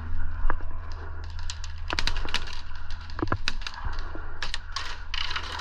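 Airsoft guns firing: scattered sharp cracks and clicks at irregular intervals, the loudest around two and three seconds in, over a steady low hum.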